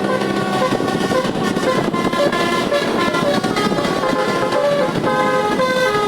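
Bus 'telolet' musical air horn with roof-mounted trumpets playing a quick melody of short notes, several pitches sounding together, over steady background noise.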